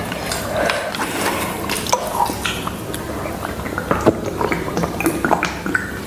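Close-miked eating sounds: chewing of chicken momos with many small wet clicks. In the second half there is also the sound of water being gulped from a plastic bottle.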